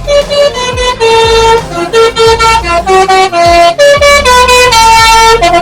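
Intercity bus's telolet basuri multi-tone air horn playing a quick tune, very loud, its notes stepping up and down every fraction of a second.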